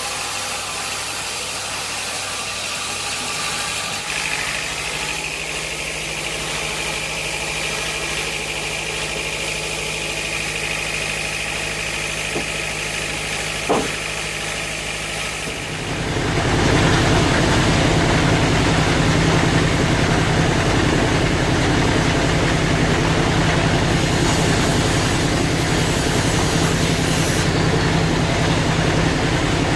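Sawmill machinery running with a steady hum and a faint high whine, with one sharp knock. About halfway through it grows much louder and rougher, and stays so.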